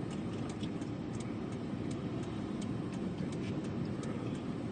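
A vehicle's road noise heard inside the cabin: a steady low rumble with scattered light ticks a few times a second.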